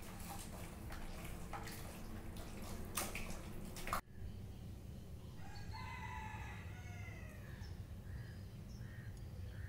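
Hands squishing and working marinated chicken pieces in a steel pot, with scattered soft clicks. After an abrupt cut, a rooster crows once for about two seconds, followed by a few short calls.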